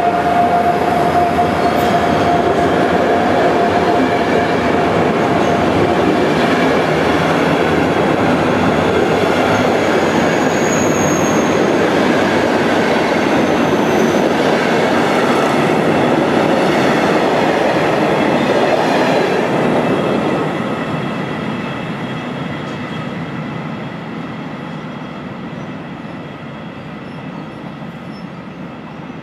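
Passenger carriages of a long train rolling past along the platform, wheels running loudly on the rails with a steady wheel squeal for the first several seconds. The rolling noise fades after about twenty seconds as the train draws away.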